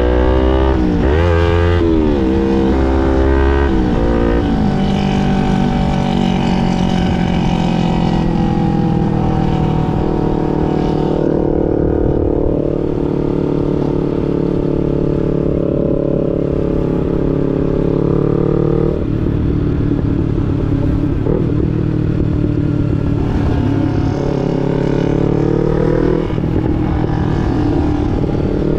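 Sport motorcycle engine under way: in the first few seconds the revs climb and drop several times through quick gear changes, then the engine holds a steady cruising note.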